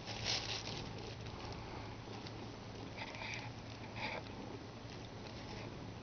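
A cat playing with a red toy held in a hand: a few short rustling scuffles, the loudest about 3 and 4 seconds in, over a steady low hum.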